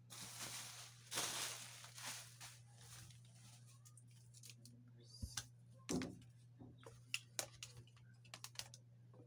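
A scratchy rustle of handling for the first couple of seconds, then scattered light clicks and knocks as a laptop's AC power adapter and its cord are handled and set down on the table.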